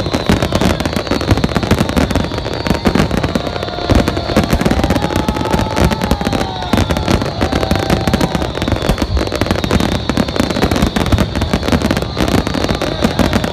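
Large fireworks display: a dense, unbroken barrage of bangs and crackles from many shells bursting at once.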